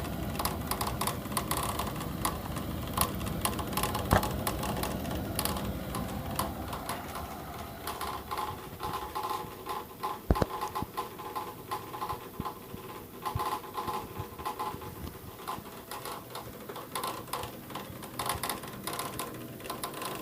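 Navien wall-mounted boiler running with a steady hum and a rapid, irregular rattling clatter from inside, the outlet pipe shaking with it. The owner suspects the three-way valve is causing the knocking.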